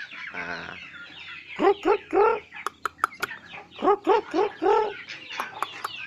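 Chickens clucking in short, arched calls, in two runs of three or four, with a few sharp clicks in between.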